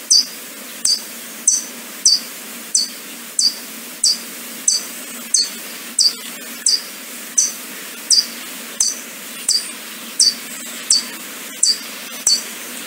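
Red-billed streamertail (doctor bird) hummingbird calling: a steady, evenly spaced series of short, high chip notes, about three every two seconds, over a faint background hiss.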